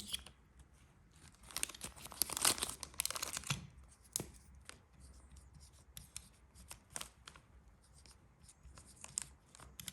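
Hands handling a small old aluminium pocket lighter: a couple of seconds of rustling and scraping, then scattered small clicks and taps.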